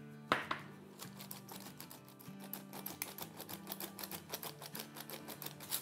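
Hand-operated flour sifter clicking rapidly as dry cake ingredients are sifted through it, with one sharper click shortly after the start. Soft background music underneath.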